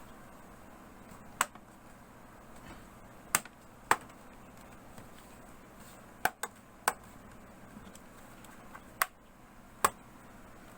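Clips of an HP 14-cm0 laptop's plastic bottom case snapping into place as the case is pressed back on: about eight sharp, separate clicks at uneven intervals.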